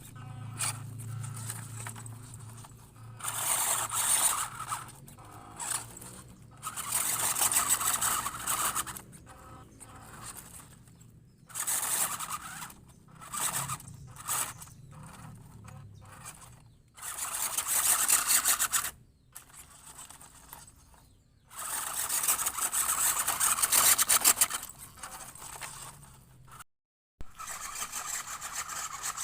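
WPL D12 RC truck's electric motor and gearbox whirring in repeated throttle bursts of one to three seconds, with quieter gaps between them.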